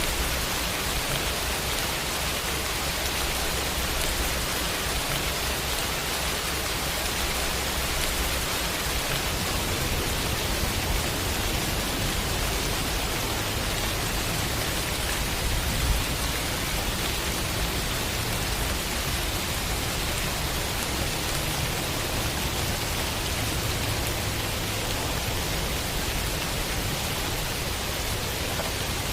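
Heavy rain falling steadily, a dense even hiss. Under it runs a low rumble of distant thunder that grows stronger through the middle, with one brief sharper hit about halfway.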